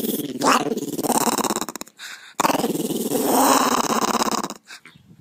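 Small white fluffy dog growling in two long, rough growls, the second starting about two and a half seconds in.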